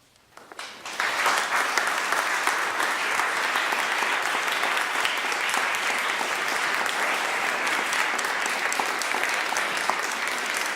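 Concert audience applauding, starting from silence with a few scattered claps and swelling to full, steady applause within about a second.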